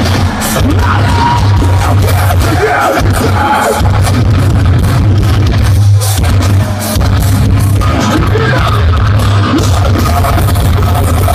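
Metalcore band playing live: loud distorted guitars, bass and drums with a vocalist on microphone, heard from within the crowd. The heavy low end drops out briefly about three seconds in and again near seven seconds.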